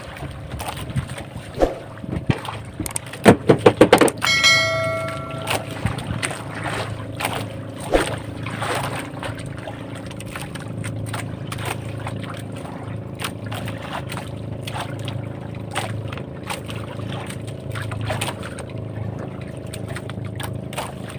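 Outrigger fishing boat's engine running steadily while trolling. About three seconds in, a quick run of loud knocks, followed by a brief metallic ring, with scattered clicks over the engine noise.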